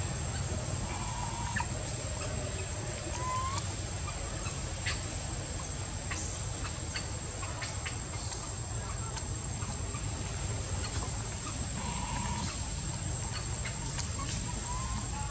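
Outdoor forest ambience: a continuous high insect drone over a low rumble, with a few short, soft chirping calls (about a second in, about three seconds in, and twice more near the end) and scattered faint clicks.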